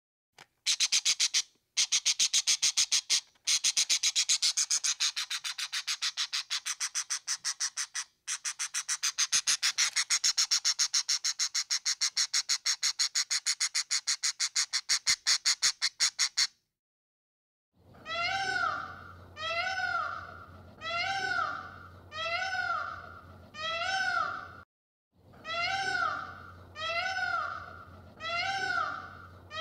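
A fast, even train of sharp clicks lasting about sixteen seconds. After a short break, a peacock calls over and over, about once a second, each call rising and then falling in pitch.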